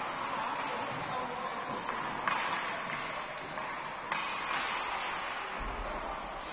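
Youth ice hockey play: steady rink noise of skates on the ice, with a few sharp clacks of stick and puck, the loudest about two seconds in.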